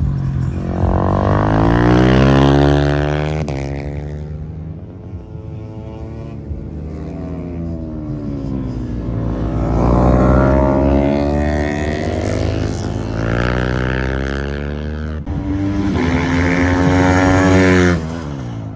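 Superbike engines revving hard, their pitch climbing and falling again and again. The sound breaks off abruptly a few times, and the loudest stretches come near the start and near the end.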